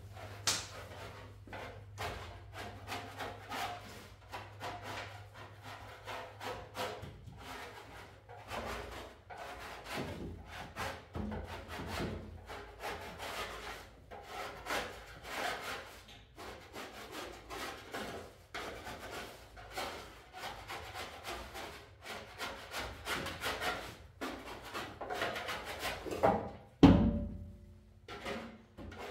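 Construction hand work: irregular scraping and rubbing strokes with scattered knocks, and one louder thump near the end.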